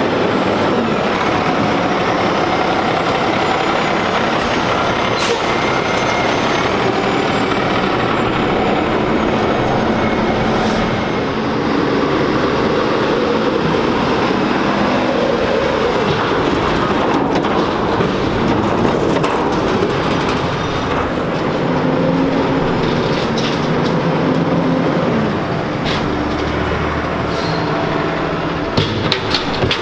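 Refuse truck's diesel engine running as the truck moves slowly along the street, with a few short, sharp knocks over it, clustered near the end.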